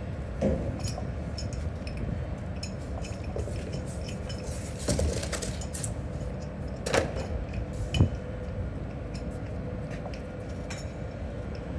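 Scattered light clinks and knocks of hard objects handled, with a few louder knocks around the middle, over a steady low background hum.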